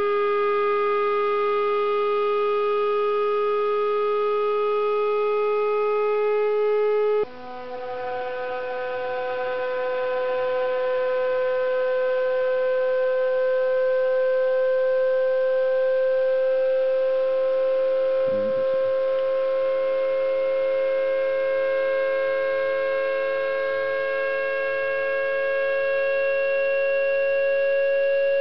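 Tambourine membrane driven by a shaker from a signal generator, sounding a steady tone rich in overtones. About seven seconds in, the tone breaks off for an instant and comes back higher, then rises slowly in pitch as the drive frequency is swept to another vibration mode of the membrane.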